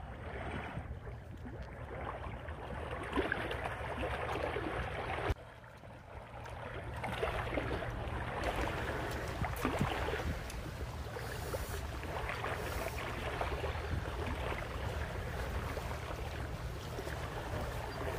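Steady outdoor background noise with a constant low rumble and a few faint clicks. It drops away for about a second around five seconds in, then comes back.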